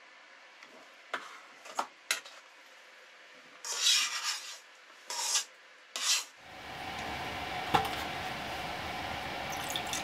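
A spoon clinking a few times, then three rasping scrapes against the ceramic clay pot and metal bowl as clay pot rice is served and eaten. Then a steady background hum comes in, with one more clink.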